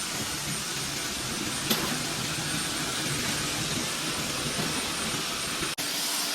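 Steady hissing mechanical noise, with a sharp click about two seconds in and a momentary dropout near the end.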